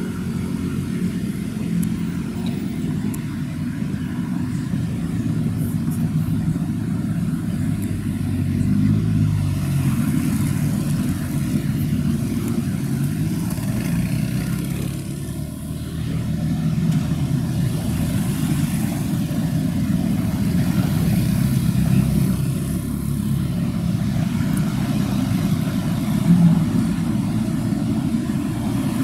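Steady low rumble of road traffic, with vehicle engines rising and falling in pitch as they pass a few times.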